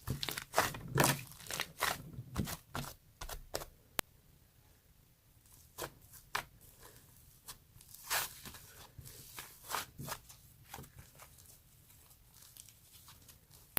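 Soft whipped-cream-and-flour dough being squished and pulled apart by hand, giving irregular sticky tearing and crackling sounds. They come thick and fast for the first few seconds, then more sparsely.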